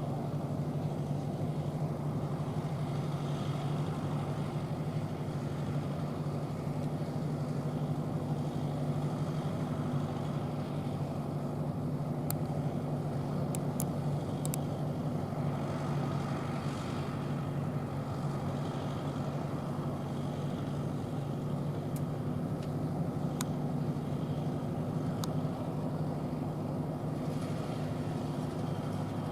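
Tractor diesel engine running steadily while baling, an even hum with no change in speed. A few sharp clicks sound in the middle stretch.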